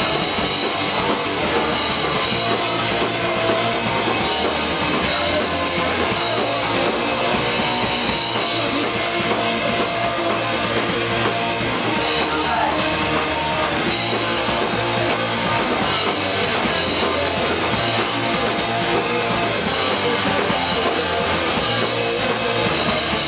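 Punk rock band playing live: electric guitars, bass guitar and a drum kit at full volume, with a singer at the microphone.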